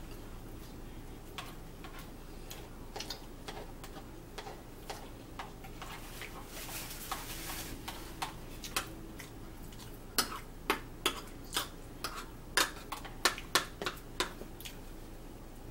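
Metal spoon and utensils clicking and scraping against plastic bowls and a plate while eating: scattered light clicks at first, then a run of about a dozen sharp clicks in the second half.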